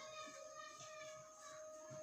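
Faint distant voices over a steady background hum of high, constant tones.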